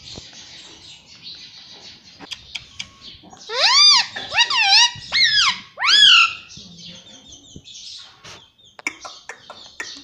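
Indian ringneck parakeet calling: four loud squawks in a quick run, each rising then falling in pitch, about three and a half seconds in, with faint clicks and taps around them.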